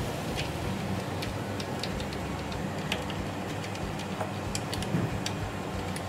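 Toothbrush bristles scrubbing the corroded copper pipes of a window air conditioner, making irregular scratchy ticks a few times a second, over a steady low hum.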